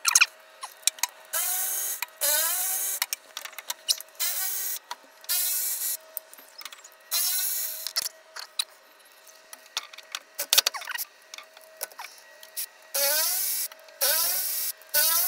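Cordless electric ratchet spinning out the rear differential cover bolts in short bursts, its motor whine rising at the start of each burst, with small metal clicks between and a longer pause midway. The cover has to come off to drain the diff because the housing has no drain plug.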